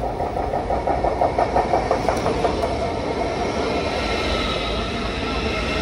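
ICE 4 high-speed train arriving at a platform. Its wheels set up a rapid rhythmic clatter over the rail joints, then a high whine grows louder toward the end.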